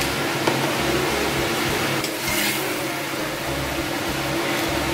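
Steady hum and hiss of commercial kitchen machinery running.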